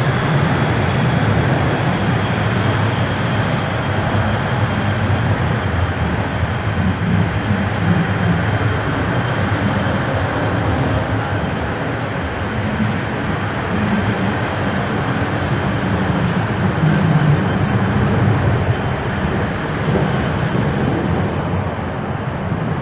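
Toronto Rocket subway train running through the tunnel, heard from inside the car: a steady rumble and rattle of wheels on the track, with a faint high motor whine.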